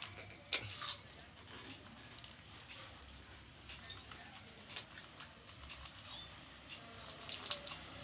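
Faint scattered clicks and small scratches of an Alexandrine parakeet eating, its beak nibbling food and tapping against a plastic water cup.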